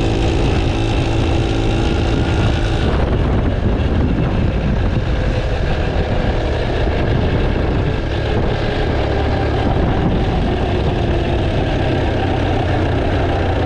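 A motor vehicle's engine running steadily with a strong low hum; its tone changes about three seconds in, from a pitched drone to a rougher, noisier sound.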